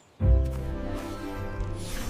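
Background music that starts abruptly after a brief silence, with a deep low note and held sustained tones.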